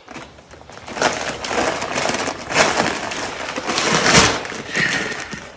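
Large 50 lb bag of poultry feed crinkling and rustling loudly as it is dragged from a car's cargo area and heaved up onto a shoulder, with many short crackles.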